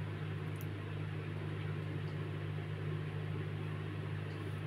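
Steady low hum that does not change, with faint rustling and small ticks of thread and cloth as a thick quilt of old clothes is hand-stitched with a long needle.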